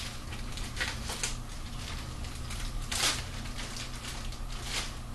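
Plastic packaging bags crinkling and rustling in the hands as foam model-airplane parts are unwrapped, in irregular crackles with the loudest about three seconds in.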